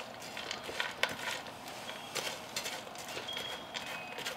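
A silicone spatula stirring and pushing crumbly stuffing mix with celery and onion around a skillet: irregular soft scrapes and rustles, a few sharper strokes among them.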